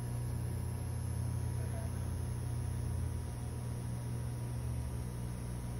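A steady low hum with a faint even hiss.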